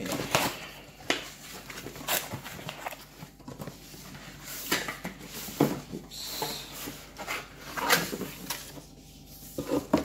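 Cardboard shipping box being opened and handled: irregular rustling and scraping of cardboard, with a few sharp knocks.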